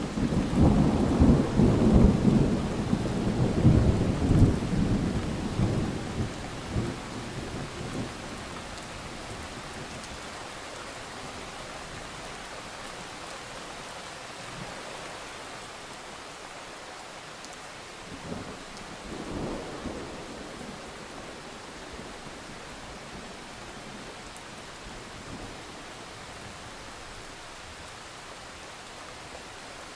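Heavy rain falling steadily with thunder: a long, loud rumble at the start that fades away over about eight seconds, and a fainter rumble about two-thirds of the way through.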